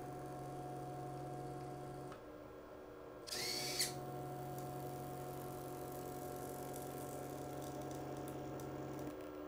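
Stepper motors of a 3D-printed six-axis robotic arm whining steadily as the arm runs a programmed move under its motor driver board. The whine changes pitch about two seconds in and again near the end. Around three and a half seconds there is a brief higher buzz that ends in a click.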